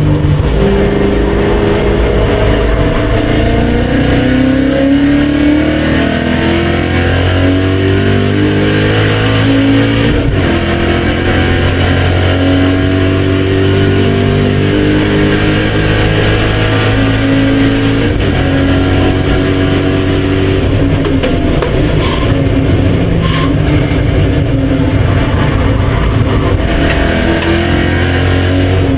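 BMW M5 E39's 4.9-litre V8 pulling hard on track, its pitch climbing through each gear and dropping back at the shifts, several times over.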